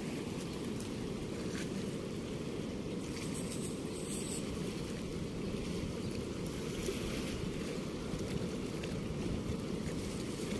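High floodwater rushing steadily through a weir's sluice gate: a deep, even rushing noise with no break.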